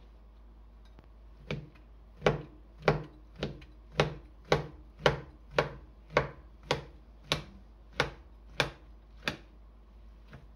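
Kitchen knife slicing a stack of fried tofu sheets into strips on a plastic cutting board. About fourteen sharp knocks of the blade hitting the board, roughly two a second, starting about a second and a half in and stopping shortly before the end.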